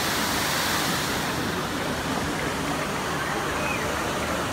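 Steady rushing hiss of the Dubai Fountain's water jets falling back as spray into the lake.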